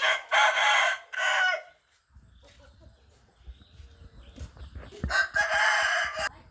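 A rooster crowing twice: a full cock-a-doodle-doo at the start with a short break near its end, and another loud crow about five seconds in.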